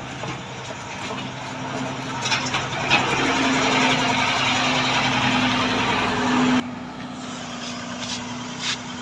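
Heavy truck engine running steadily, with a louder rushing noise over it that builds about a third of the way in and cuts off suddenly about two-thirds through.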